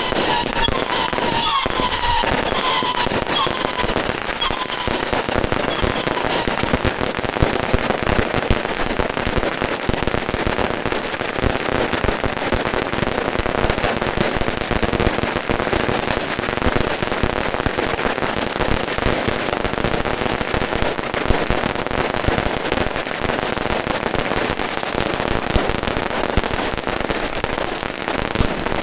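Firecrackers and fireworks going off in a dense, unbroken crackling barrage, with a few thin whistling tones over it in the first few seconds.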